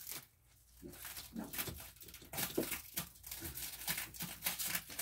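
Plastic stretch wrap crinkling and tearing in irregular crackles as it is cut and pulled off a cardboard box.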